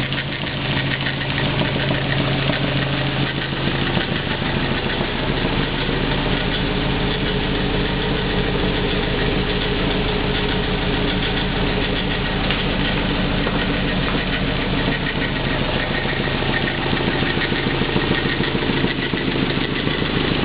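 Engine of a Nissan 240SX, newly swapped in, idling steadily.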